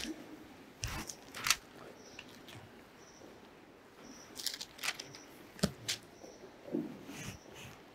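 Bible pages being turned and loose sheets of paper handled close to a microphone: a scattering of brief, faint rustles and soft clicks.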